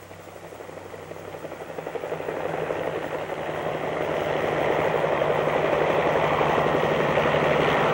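An engine running, growing steadily louder over the first five seconds and then holding steady.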